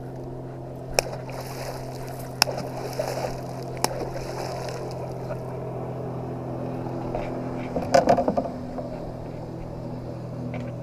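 A small fish reeled up beside a kayak and lifted out of the water, with a brief splashy flurry about eight seconds in and a few sharp clicks earlier on, over a steady low motor hum.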